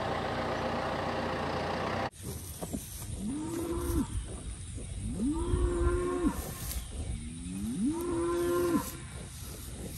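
Young calves mooing: three drawn-out, fairly high-pitched calls about two seconds apart, each about a second long. Before them, a tractor engine hums steadily and cuts off abruptly about two seconds in.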